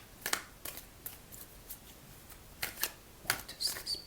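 A deck of tarot cards being shuffled by hand: a series of short, sharp card snaps at irregular intervals.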